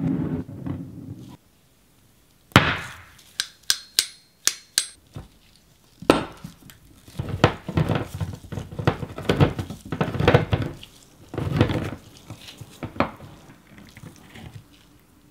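Hand-crank can opener on a metal can: a few sharp metallic clinks as it is clamped onto the rim, then several seconds of repeated short grinding bursts as the crank is turned and the wheel cuts around the lid. Near the end, a spoon scrapes thick coconut cream out of the opened can.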